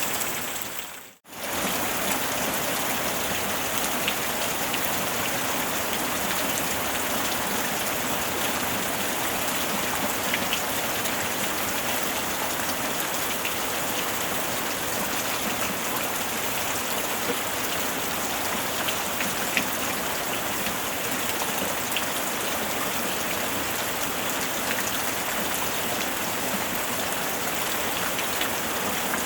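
Steady rain falling, with scattered faint drop ticks. About a second in it fades out almost to silence and straight back in.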